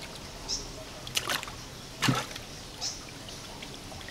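A few short splashes of water as fish are scooped by hand from a plastic tub and let go into a cement fish tank, the loudest about two seconds in, over a steady trickle of water.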